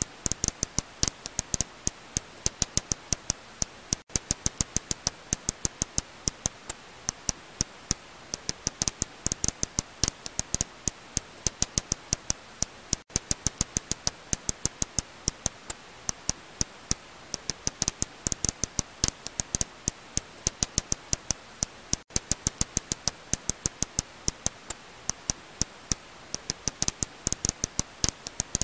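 Serotine bat echolocation calls, heard as a rapid, uneven run of sharp clicks, several a second.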